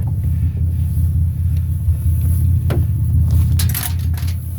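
Steady low rumble of a motor vehicle running, with a few brief knocks or clatters in the second half.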